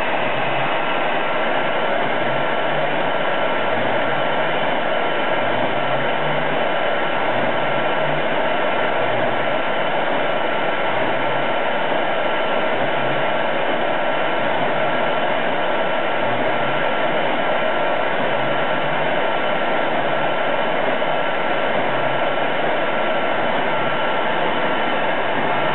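Shop vacuum running steadily as the fume extractor for a CO2 laser cutter, a constant rush of air through the hose with a faint steady whine above it.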